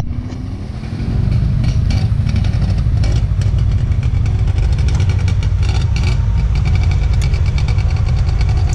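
Small motorcycle engines idling close by, a steady low rumble with a fast ticking, getting louder about a second in.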